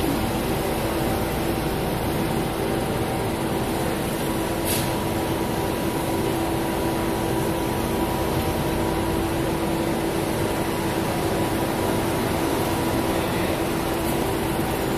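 Steady machine drone with a constant hum, unchanging throughout, from engines and machinery running at a grape-receiving bay. A short click about five seconds in.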